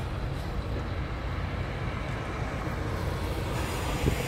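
Scania R420 truck's six-cylinder diesel engine idling with a steady low rumble, and a single short knock about four seconds in.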